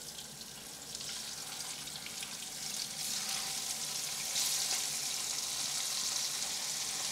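Masala-coated rohu fish steaks sizzling as they fry in hot oil, the sizzle growing louder as more pieces are laid into the pan, with jumps about three seconds in and again just past four seconds.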